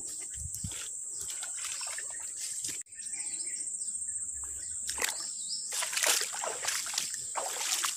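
Feet splashing and sloshing through muddy floodwater on a forest path, the splashes coming thickest from about five seconds in, over a steady high drone of insects.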